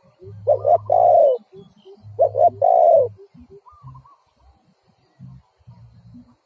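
Spotted dove cooing: two phrases, each a couple of short notes followed by one longer, drawn-out coo, in the first half, then quiet.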